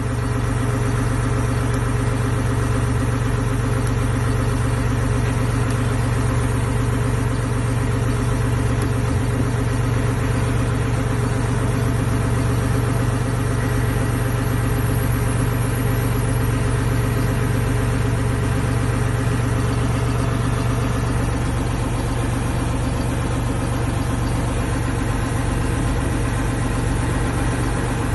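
Massey Ferguson 5610 tractor's diesel engine idling steadily while the tractor stands still, heard from inside the cab.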